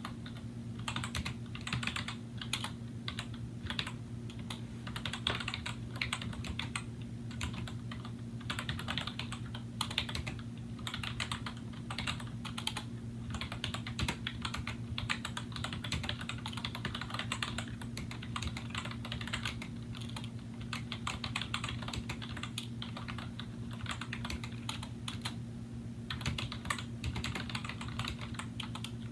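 Continuous fast typing on an Apple M7803 Pro Keyboard, whose keys use Mitsumi rubber domes with integrated sliders: a dense run of keystroke clacks, with a brief pause near the end.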